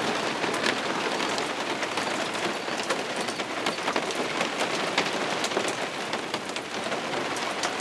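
Heavy thunderstorm downpour: a steady hiss of rain with many sharp drop splashes, and water pouring off an awning.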